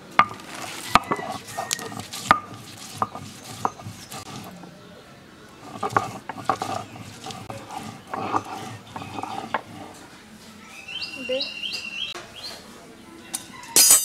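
A stone roller knocking and grinding on a stone slab (shil-nora) as onion and garlic are crushed, with sharp stone-on-stone knocks in the first few seconds. Later, a hen and chicks calling, with short high chick peeps near the end, and one more loud knock of the stone.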